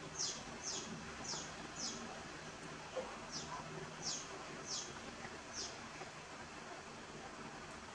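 A bird chirping: a run of short, high chirps, each falling in pitch, about eight of them in the first six seconds, over a faint steady hiss.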